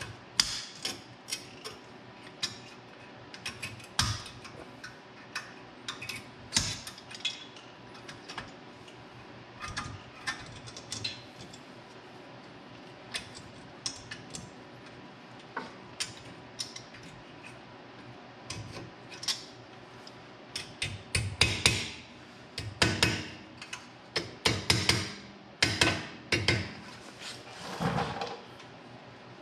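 Irregular metal clicks, taps and scrapes as tongue-and-groove pliers work a steel anti-rattle spring clip into place on a brake caliper. The knocks and rubs come louder and closer together in the last third.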